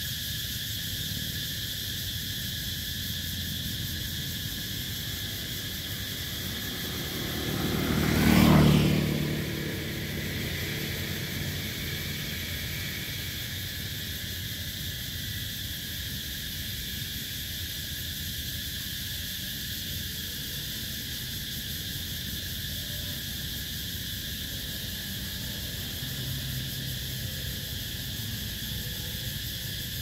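Night cicadas shrilling steadily in several high, unchanging pitches. About seven seconds in, a motor vehicle passes, swelling to the loudest point and fading away over about three seconds.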